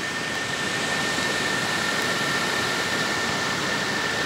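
Steady rush of floodwater pouring over a dam's spillway, the reservoir full and overflowing after heavy rain. A thin, steady high tone runs through it.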